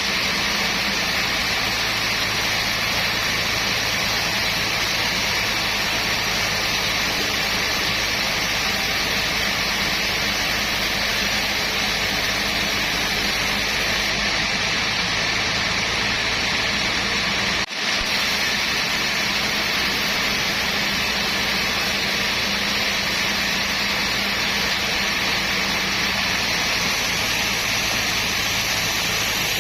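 Sawmill machinery running steadily with a constant hum, with a brief break about two-thirds of the way through.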